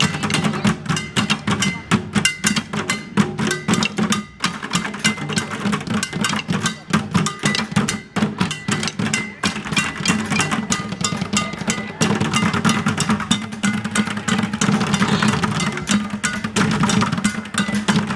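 A street band playing, led by a dense, driving drum and percussion rhythm over sustained instrument tones.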